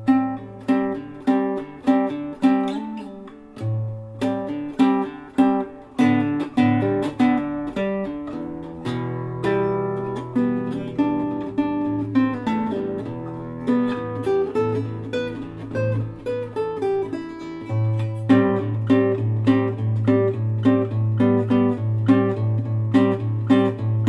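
Background music: acoustic guitar playing with regular plucked and strummed notes.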